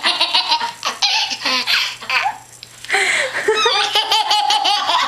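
Toddler laughing hard in quick repeated bursts, breaking off briefly just past halfway, then laughing again.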